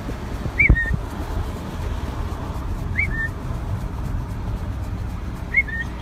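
A person whistling a short two-part call three times, each a quick rising-and-falling note that drops to a brief lower one, over the steady low rumble of a moving car. A low bump sounds with the first whistle.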